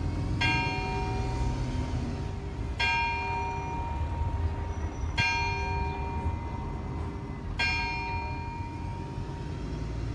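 Culross Town House clock bell striking noon: a single bell at one pitch, struck four times about two and a half seconds apart, each stroke left to ring out, over a low background rumble.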